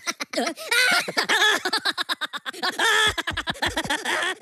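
High-pitched cartoon minion voices giggling and babbling rapidly, then about three seconds in a loud yell with a deep low rumble from the purple Evil Minion.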